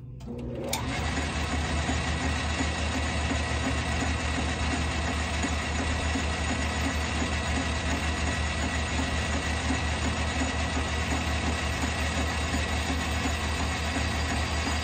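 Manual Logan metal lathe switched on under a second in, then running steadily with its chuck spinning: an even low hum with a faint steady high whine.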